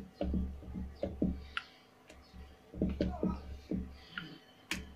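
Rolling pin working semolina dough back and forth on a round wooden board: a run of short, low rumbling strokes with light knocks, and a lull about two seconds in.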